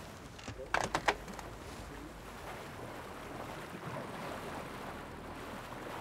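Wind and sea washing past a sailing yacht under way, a steady rushing noise. A few short sharp clicks sound about a second in.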